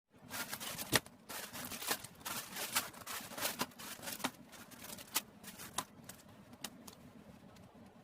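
Plastic scale-model kit parts and packaging being handled: irregular rustling with many sharp clicks, the loudest about a second in.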